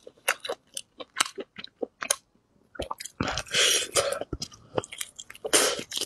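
Close-miked eating sounds of gnawing meat off a braised beef rib bone: a quick run of short wet mouth clicks and smacks, a half-second pause a little past two seconds in, then louder, longer chewing bursts.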